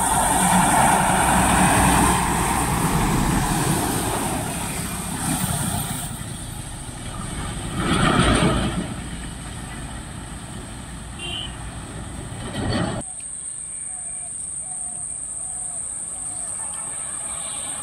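A truck passes close by, its engine and tyres on the wet road loudest in the first few seconds, and a motorcycle passes about eight seconds in. After an abrupt cut near thirteen seconds, quieter distant traffic remains, with a steady high-pitched whine.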